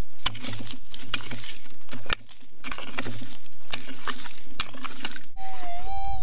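A digging pick striking and scraping through stony, gravelly ground, a run of sharp clinks and scrapes. About five seconds in, a steady tone with a slight waver begins.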